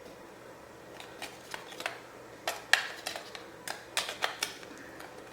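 Small plastic clicks and taps as AA batteries are fitted into the battery compartment of a toy bubble machine, about a dozen irregular clicks over a few seconds.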